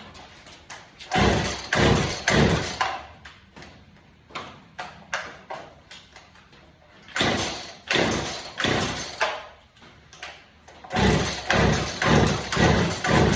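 Chainsaw being pull-started from cold: the recoil starter cord is yanked again and again in quick runs of pulls, each a short rasping zip.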